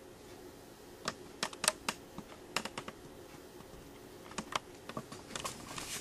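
A run of sharp, irregular clicks and taps in small clusters, starting about a second in, over a faint steady hum.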